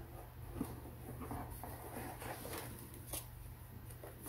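Faint rustling and light clicks of packaging and small items being handled as a subscription box is unpacked.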